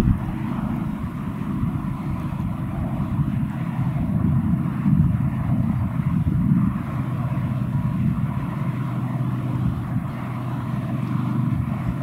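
Steady low rumble of distant motor noise, without clear breaks or rises.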